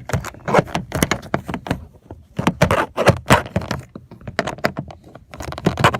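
Plastic trim of a pickup's interior door panel being pried and handled: an irregular run of sharp cracks, clicks and knocks.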